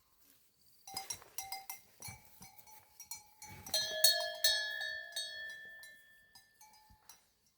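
Metal clinking and knocking, starting about a second in, with two louder strikes near the middle whose bell-like ringing fades over the next few seconds.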